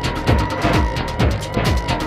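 Electronic dance music with a driving kick-drum beat, about two beats a second, and fast hi-hats.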